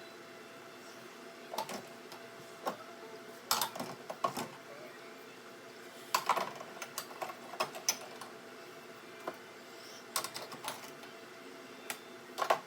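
Irregular clicks and knocks of containers and jars being handled and set down, some in quick clusters, over a faint steady hum.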